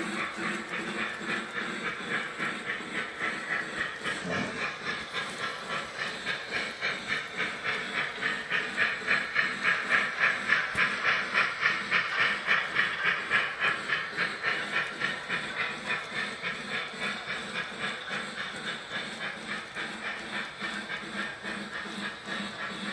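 Lionel Polar Express toy steam locomotive's electronic chuffing sound: a steady, rhythmic hissing chuff of about three to four beats a second. It grows louder as the engine and tender pass, then slowly fades as the passenger cars follow.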